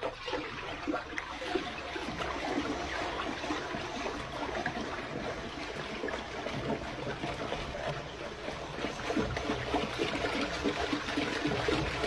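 Toilet flushing: water rushing and gurgling as it swirls down the bowl. It starts suddenly and grows a little louder near the end.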